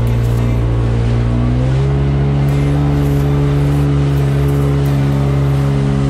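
Jet ski engine running steadily at speed, its pitch rising a little about two seconds in as the throttle opens, over the rush of water.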